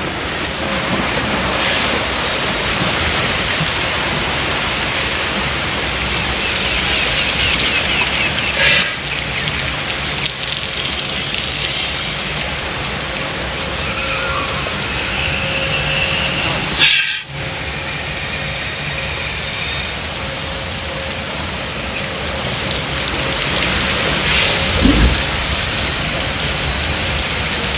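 Steady rushing water around a river-rapids raft ride, with a couple of brief knocks about 9 and 17 seconds in.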